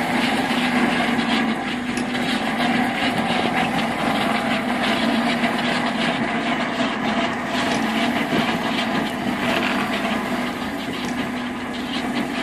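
Crab-fishing boat's engine running steadily: a constant drone with a dense hiss and fine crackle over it.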